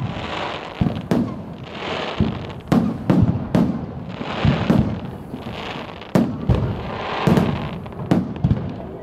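Aerial fireworks display: a rapid run of shell bursts, loud bangs every half second to a second, with crackling and hiss between them.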